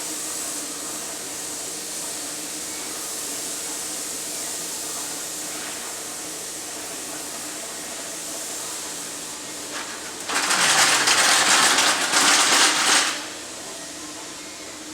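Steady hiss with a faint hum, then a loud blast of rushing, hissing air for about three seconds near the end.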